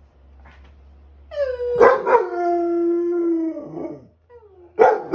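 English springer spaniel howling: one long howl that slides down in pitch and then holds, broken by short sharp barks or yips, with another short burst near the end.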